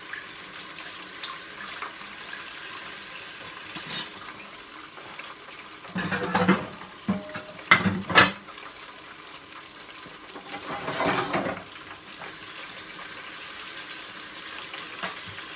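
Dishes and utensils clinking and knocking several times, loudest a little past the middle, over a steady hiss.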